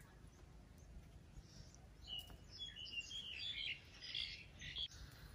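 Faint bird chirping: a run of short, high chirps from about two seconds in.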